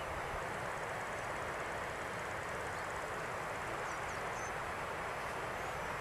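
Steady rushing of water, even and unbroken, with a few faint high bird chirps about four seconds in.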